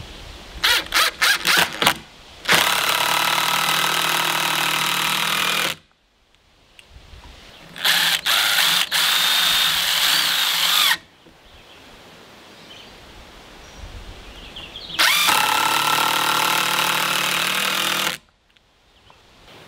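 Ridgid 18V cordless impact driver driving long screws into two-by lumber: a few quick trigger bursts to start the screw, then three long runs of a few seconds each with pauses between.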